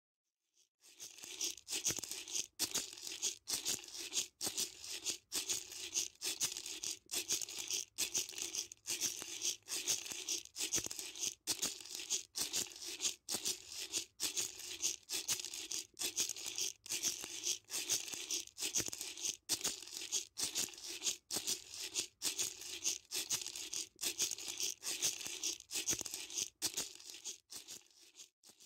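Rattle-like shaking in an even, steady rhythm with a held low tone beneath it, starting about a second in and stopping just before the end: rhythmic intro music.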